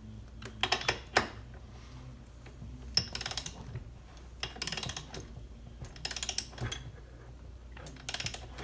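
Ratcheting torque wrench being worked in about five short strokes of rapid clicking, tightening a spark plug into a freshly installed Helicoil thread insert in a chainsaw cylinder, up to about 18.5 foot-pounds.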